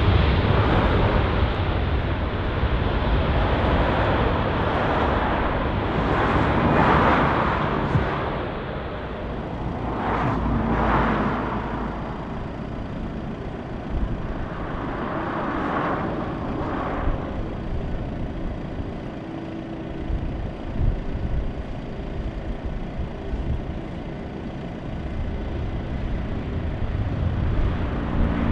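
Boeing 777 jet engines running loud during its landing rollout, easing off after about eight seconds. Then the lower, steady jet engine noise of an Airbus A321-200 on final approach and touchdown.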